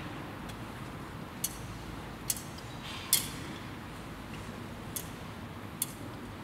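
Steady low background noise with about five short, sharp clicks at uneven intervals, the loudest a little after three seconds in.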